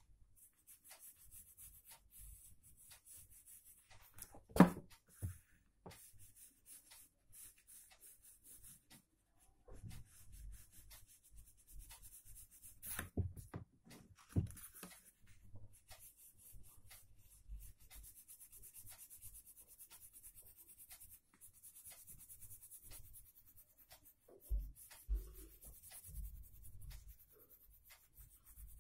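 Pencil scratching and rubbing on paper in short, repeated strokes while shading a drawing. A sharp knock about five seconds in is the loudest sound, with a few smaller knocks later and some low thumps near the end.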